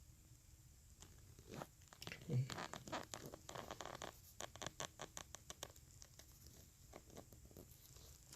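Cardboard and plastic packaging being handled while a power amplifier is unboxed: a run of quick rustles, scrapes and clicks starting about a second and a half in and dying down after about six seconds.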